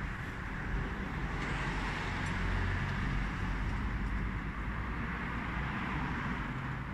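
Steady rushing noise of air-conditioning units running in a large hall, with a low rumble underneath.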